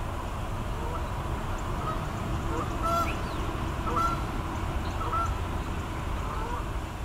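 Short bird calls repeated about once a second, over a steady low background rumble.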